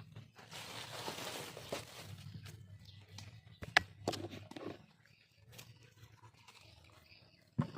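Dogs eating watermelon: wet chewing and crunching with a rustling stretch about a second in, a sharp click near the middle, then only faint sounds.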